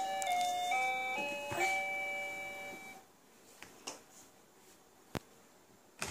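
A baby toy's electronic tune: simple beeping notes stepping up and down in two parts, stopping about three seconds in. After it come a few faint clicks and a sharp tap near the end.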